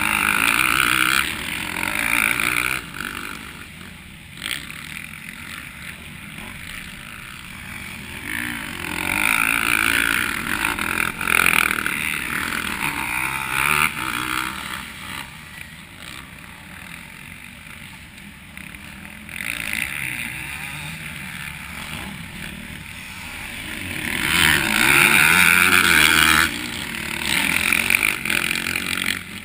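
Motocross bikes passing the track edge, their engines swelling loud and fading away: one right at the start, another about nine seconds in, and a third about twenty-four seconds in, with fainter engine noise between.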